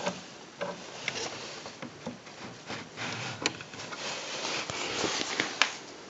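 Handling noises from a vintage portable manual typewriter and its carry case: irregular light clicks and knocks, a dozen or so, with rubbing in between. The loudest click comes a little before the end.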